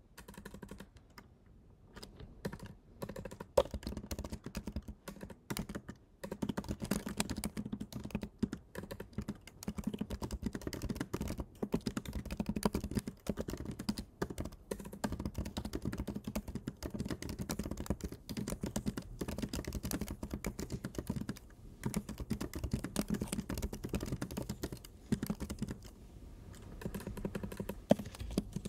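Typing on a computer keyboard: quick runs of key clicks with short pauses between phrases, including a near-silent gap of about a second near the start.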